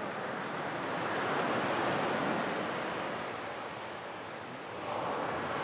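Sea surf: waves breaking and washing up the shore in a steady rush, swelling to a peak about two seconds in, easing off, then swelling again near the end.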